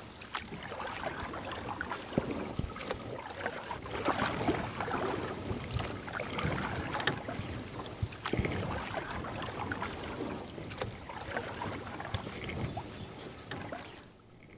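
Kayak being paddled on a river: paddle blades splashing, with water washing around the hull in irregular strokes. It cuts off near the end.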